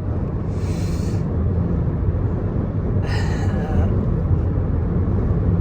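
Steady low road and wind rumble inside the cabin of a 2024 Kia Telluride SX AWD driving at freeway speed in gusty wind. There are two short hissing sounds, about half a second in and about three seconds in.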